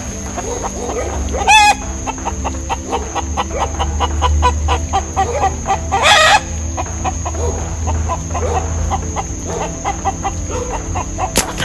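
Domestic chickens, a rooster among them, on their night roost, uneasy at being disturbed by the light and clucking in quick repeated notes. There are two louder squawking outbursts, about a second and a half in and again about six seconds in, and a sharp click near the end.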